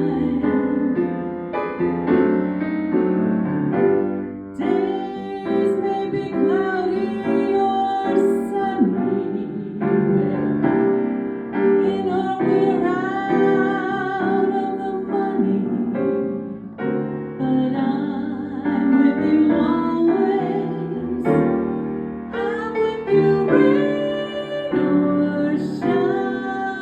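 Music: a female voice singing a slow melody over piano accompaniment.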